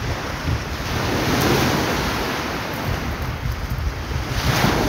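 Surf breaking and washing up a beach, swelling about a second and a half in and again near the end, with wind rumbling on the microphone.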